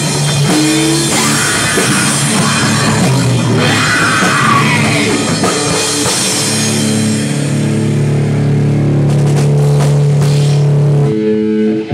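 Screamo band playing loud with a drum kit, distorted electric guitars and bass. About halfway through, the band holds one ringing chord, which is cut off sharply near the end.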